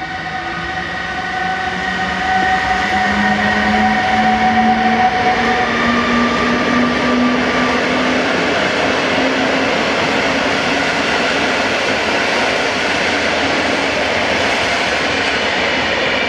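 PKP Intercity electric-hauled passenger train passing close by: in the first half the locomotive's electric drive whines in several tones, the lowest rising slowly in pitch as it picks up speed, then the steady rolling noise of the coaches' wheels on the rails carries on.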